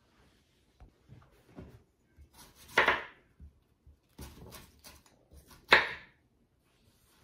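Kitchen knife slicing an apple on a wooden cutting board: scattered light taps, then two louder chops about three seconds apart.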